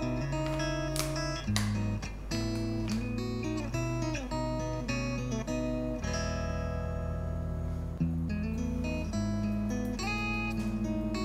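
Background guitar music: plucked notes and chords, with short slides between pitches.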